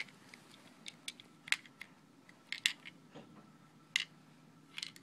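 Plastic Lego bricks of a small coin-operated candy-dispenser mechanism clicking and clattering as it is handled in the hands, a string of sharp separate clicks at irregular intervals.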